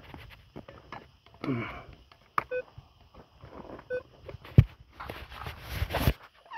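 Minelab Vanquish metal detector giving two short beeps about a second and a half apart as its coil is swept over dry ground, with footsteps and one sharp knock.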